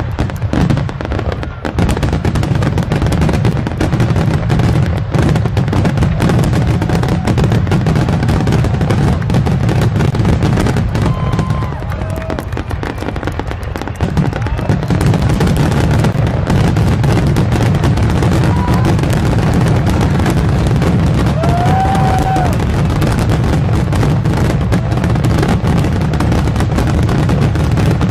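Dense barrage of aerial firework shells bursting, the bangs overlapping into a continuous deep rumble, with a short lull about twelve seconds in.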